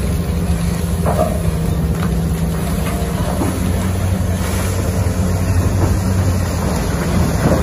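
Diesel engine of a Komatsu PC2000 mining excavator running with a steady, heavy drone as it works, swinging and dumping its bucket into a haul truck.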